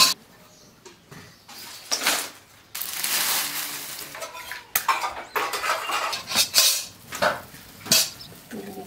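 A metal wok set down on a hard floor with a sharp clank, then dry leaves and twigs rustling and crunching in bursts as they are gathered by hand for a wood fire.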